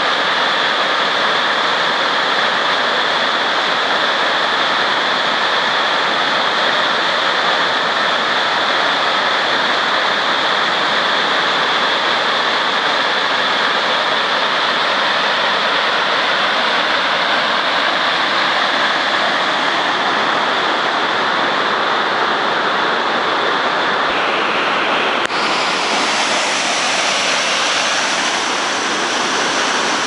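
Waterfall in flood, a swollen river of brown water pouring over rocks: a loud, steady rush of falling water. About 25 seconds in, the rush abruptly becomes brighter and hissier.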